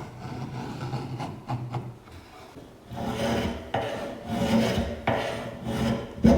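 Repeated rasping strokes of a hand tool scraping a workpiece, becoming louder about three seconds in and running at roughly two strokes a second.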